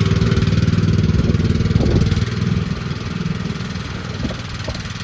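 Small gas engine of a 2024 AGT QK16R mini excavator running steadily, easing down in level about two seconds in, with a few faint knocks.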